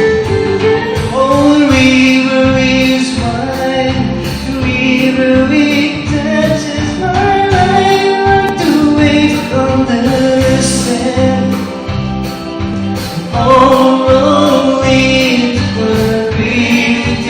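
Live band playing a slow folk-rock song, a steady drum beat under a held melody line, with singing.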